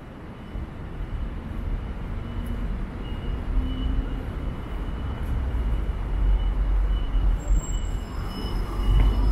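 Low rumble of passing vehicles, building over the first few seconds and then swelling and easing, with a faint steady high whine above it.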